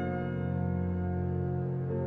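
Calm instrumental background music: held keyboard notes slowly fading, with a soft new note coming in near the end.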